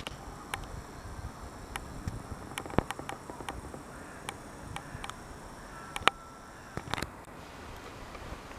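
Faint outdoor ambience: a steady high-pitched drone that stops suddenly about seven seconds in, with scattered light clicks.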